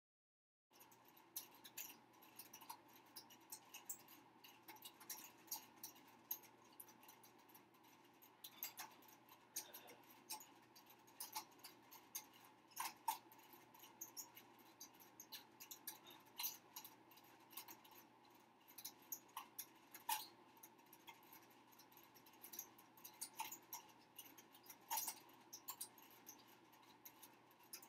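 Faint, irregular scratching and small clicks of a rat-tail comb and fingertips working through hair and across the scalp while parting it, over quiet room tone with a low hum.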